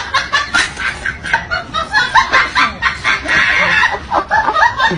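A quick run of short, chirpy animal calls, several a second.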